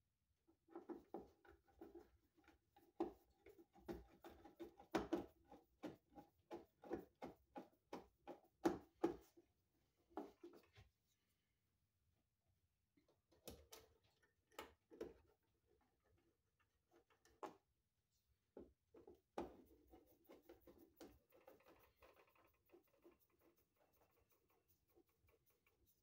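Small clicks and squeaky scrapes of hand work on a wall light switch being fitted back into its electrical box. They come in two runs of quick irregular ticks, one starting about a second in and the other about halfway through.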